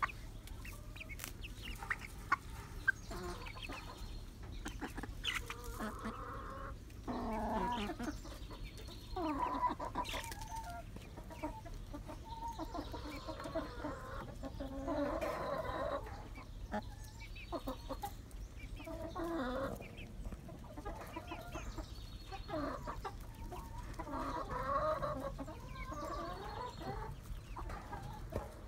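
A mixed flock of young hens (Starlight Green Eggers, Sapphire Gems and Rhode Island Reds) clucking and calling on and off in short clusters, with a few sharp clicks in the first seconds.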